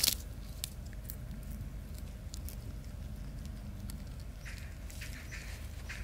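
Bernese mountain dog puppy chewing a dry fallen leaf in the snow: scattered small crackles and crunches, the loudest right at the start, over a steady low rumble.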